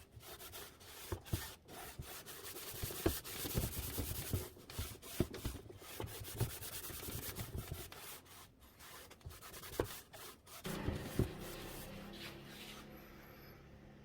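Rubbing strokes on a wooden surface, a scratchy scrubbing of irregular strokes; about ten and a half seconds in it stops and a quieter steady low hum remains.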